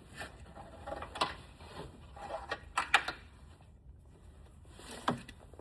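Hands working at a car's liftgate wiring harness and plastic trim: a few sharp plastic clicks and knocks with light rustling in between.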